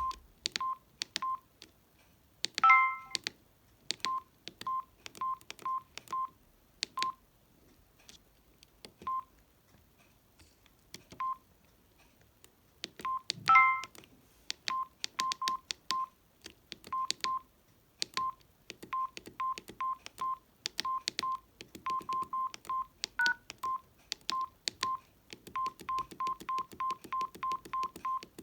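Samsung SGH-D600 mobile phone keypad tones: short beeps all at one pitch, each with the click of a key press, coming at an uneven pace. Two louder multi-note tones sound, one early and one about halfway through. Near the end the presses come quickly, about four a second.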